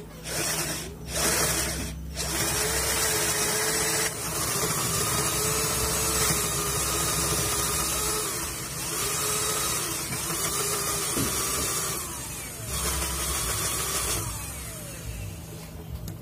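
Cordless drill with a spade bit boring into a wooden block, run in several bursts of a few seconds each. The motor whine drops in pitch each time the trigger is released.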